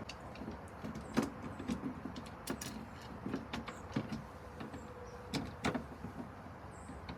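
Light clicks and knocks as a truck's replacement indicator light and its wiring are handled and fitted into place, over a steady low background rumble.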